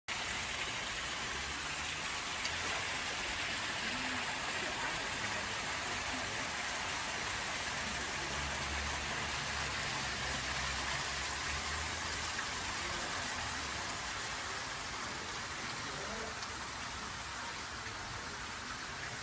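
A steady, even hiss, with a faint low hum for a few seconds in the middle.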